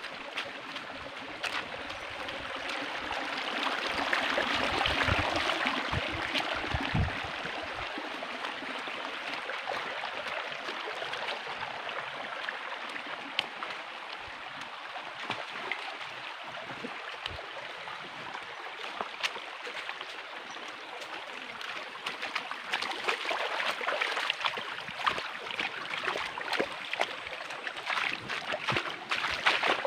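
A shallow stream running over rocks, a steady rush that grows louder a few seconds in and then settles. Rustling and crunching steps through brush and stones crowd the last several seconds.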